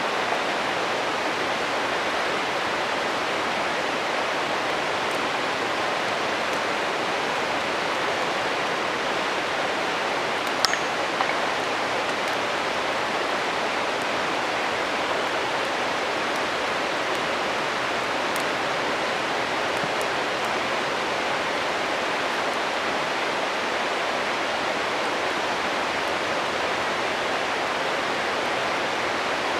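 Steady rush of a flowing stream, with a few sharp crackles from a wood campfire; the two loudest pops come close together about ten seconds in.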